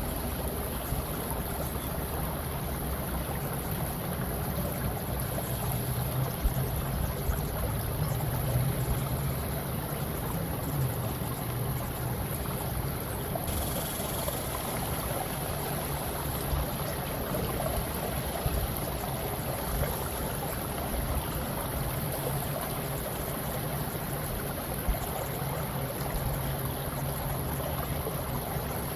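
Steady ambient running-water sound, an even wash like a flowing stream, with a faint steady low hum under it.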